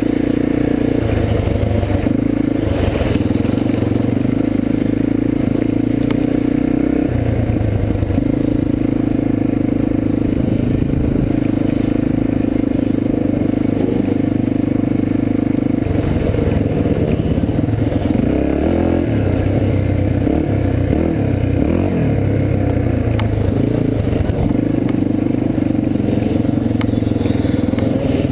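Dirt bike engine running under way, its steady note holding for stretches and breaking up a few times, around 1, 7, 16 and 24 seconds in, as the throttle or gear changes. Tyres scrape and crunch over gravel.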